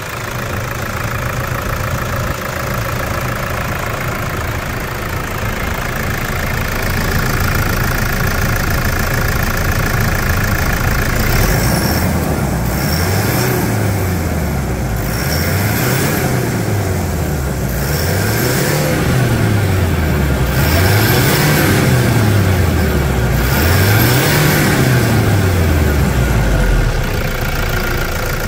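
Toyota SW4's 3.0 four-cylinder turbodiesel with a newly fitted turbocharger, idling steadily and then revved about five times in a row from around halfway, each rev rising and falling in pitch. A high whistle from the turbo sweeps up and down with each rev.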